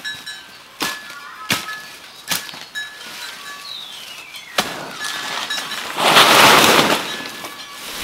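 Dry banana leaves and stalks crackling and snapping as someone pushes through a banana thicket: a few sharp snaps, then a loud rush of rustling about six seconds in.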